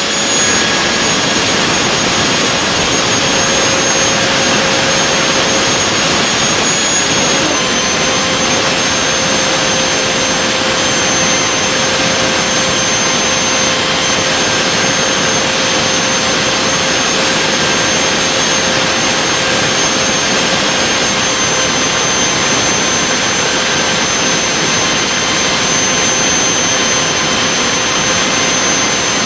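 Handmade turbojet engine, with a 135 mm compressor and titanium turbine wheel, running at a constant speed: a loud, steady rushing noise with a high turbine whine that drops slightly in pitch about seven seconds in.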